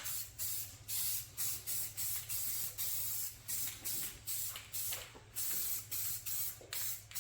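Aerosol spray paint can sprayed in short, rapid hissing bursts, about three a second, misting light orange paint onto a wooden dash panel.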